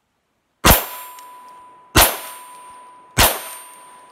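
Three shots from a Calico M100 .22 LR pistol, about a second and a quarter apart. Each is followed by a steady ringing ping from the steel target being hit.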